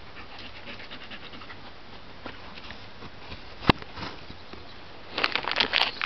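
Dog panting and sniffing close by. A single sharp click comes about three and a half seconds in, and dense crackling starts near the end.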